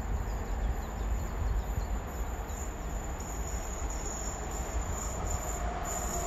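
Double-deck electric train approaching from a distance: a low, even rumble slowly building, with a thin steady whine coming in near the end.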